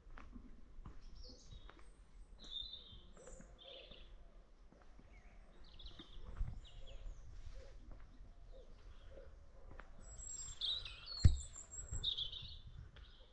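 Birds chirping and calling in short scattered phrases over a low outdoor background, with a sharp knock about eleven seconds in.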